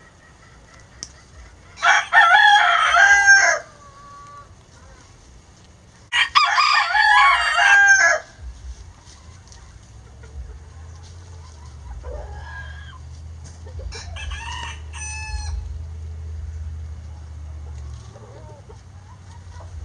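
Lavender Old English Game bantam rooster crowing: two loud crows about two and six seconds in, then a fainter crow around fourteen seconds.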